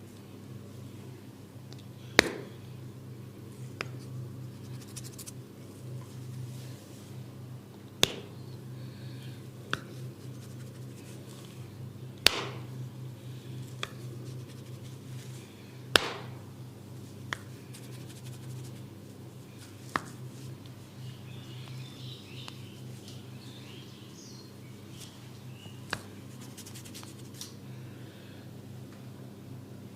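A barber's hands at work in a head and neck massage: sharp single cracks or slaps, roughly every four seconds and some louder than others, over a steady low hum.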